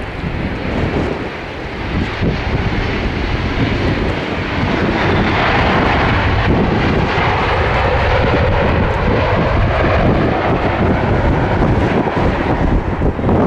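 Boeing 777-200ER arriving, the roar of its twin GE90 jet engines growing about five seconds in and staying loud, with wind buffeting the microphone underneath.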